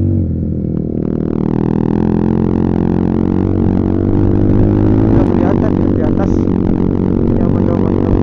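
Single-cylinder engine of a Honda CBR150R running steadily under the rider while the bike is ridden up a road.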